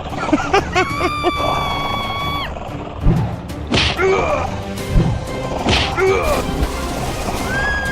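Background music with cartoon sound effects: a quick run of bouncy pitch slides, a held tone, then two thuds about two seconds apart, each followed by a swish and a falling slide.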